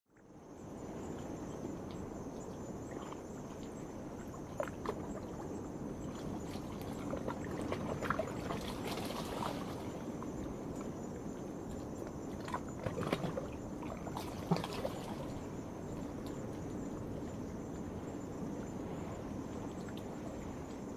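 Waves washing and lapping against a rocky shore, under a steady high-pitched chorus of night insects. Scattered sharper splashes and clicks come in the middle. The sound fades in at the start.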